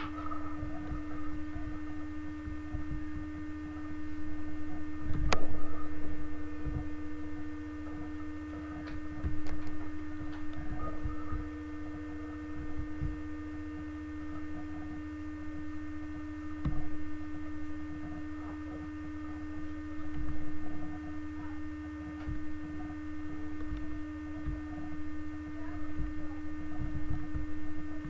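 A steady electrical hum with scattered low knocks and bumps, and one sharp click about five seconds in.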